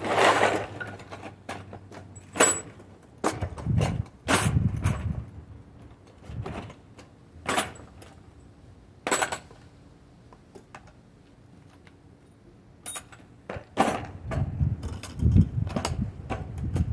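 Hand tools clinking and clattering as they are put away in a plastic toolbox: a scattered series of sharp metallic clicks and knocks, with duller thumps near the end as the box is closed.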